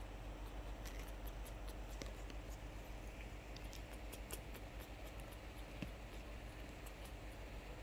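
Faint scattered ticks and scratches as a newborn macaque's fingers and toes grip and scrape the quilted fabric while it crawls, over a steady low room hum.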